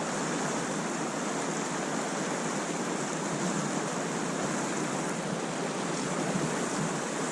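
Creek water running, a steady even rushing hiss with no low rumble.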